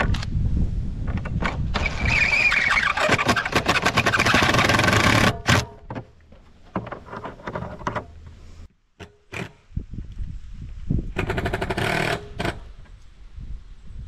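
Cordless impact driver hammering a screw into black corrugated plastic culvert pipe: a loud, rapid rattle with a motor whine lasting about three seconds, then a shorter, similar burst about eleven seconds in.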